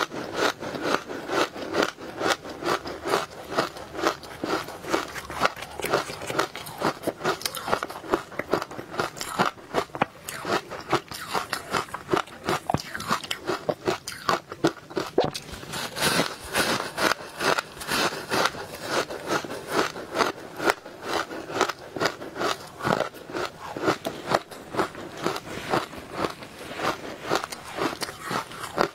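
Biting and chewing powdery ice chunks dusted with matcha powder, close-miked: a rapid, unbroken run of crisp crunches, several a second.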